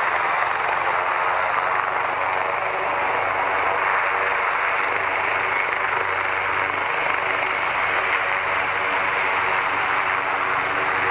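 Steady aircraft engine noise: an even rushing sound that holds one level throughout.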